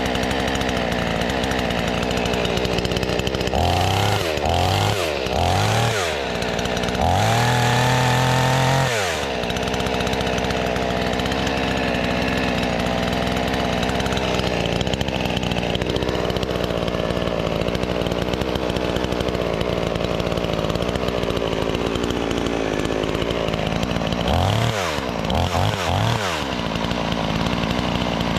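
New chainsaw's engine idling, with three quick throttle blips a few seconds in and then one held rev for about two seconds. It settles back to idle and gets three more quick blips near the end.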